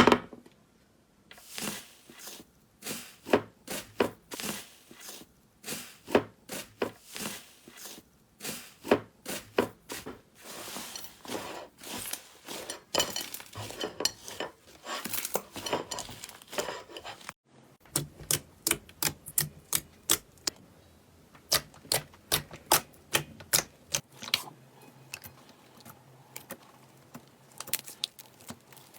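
Slime being squeezed and poked by hand, making a long run of sticky clicks and pops. There is a short break about two thirds through, then sharper, more evenly spaced clicks.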